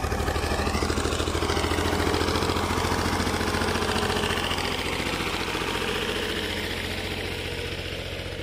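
Fiat tractor's diesel engine working under load as it drags a rear scraper blade through sand, a steady rapid beat that grows somewhat fainter in the last few seconds.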